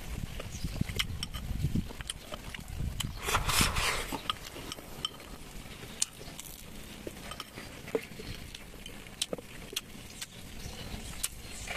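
Eating utensils clicking against bowls at a meal: scattered small clicks, with a short rush of noise about three and a half seconds in.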